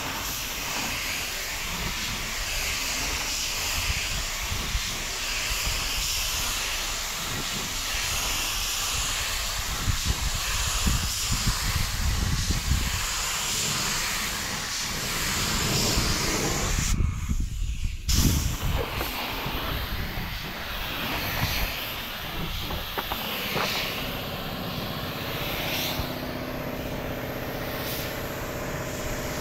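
Compressed-air paint spray gun hissing steadily as it sprays paint, over a low rumble. The hiss breaks off for about a second roughly two-thirds of the way through, and a low steady hum joins near the end.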